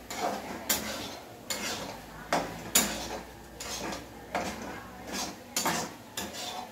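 A spatula scraping and clanking against a kadai as food is stirred, in uneven strokes a bit under a second apart.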